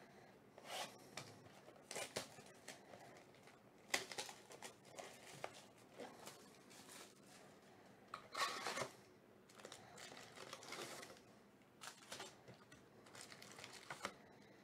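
Cardboard hobby box and foil trading-card packs being handled on a desk: faint, irregular rustling and scraping with light taps, the sharpest tap about four seconds in and a louder rustle about eight seconds in.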